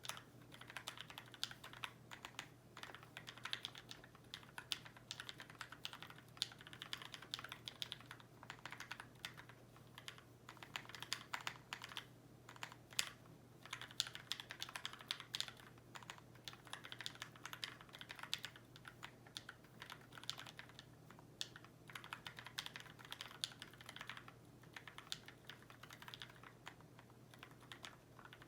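Custom 65% mechanical keyboard being typed on in bursts of rapid keystrokes with brief pauses. The keys are lubed and filmed Tealios V2 linear switches on a brass plate in a Tofu65 case, with PBT keycaps.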